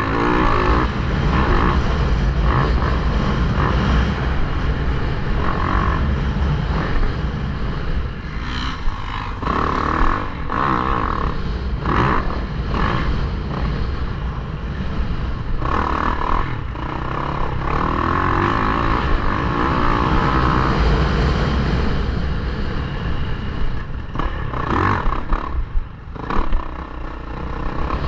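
Yamaha YZ450F's 450 cc single-cylinder four-stroke engine revving up and easing off again and again as the dirt bike is ridden hard around a motocross track, with wind buffeting the helmet-mounted microphone.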